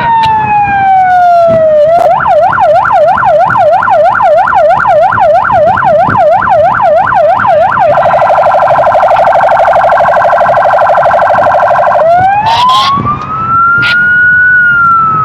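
Police patrol car's electronic siren, sounded to clear the way at an intersection, cycling through its tones. First a slow falling wail, then about six seconds of fast yelp at roughly two and a half sweeps a second, then about four seconds of a rapid warble, then a slow wail that rises and starts to fall again.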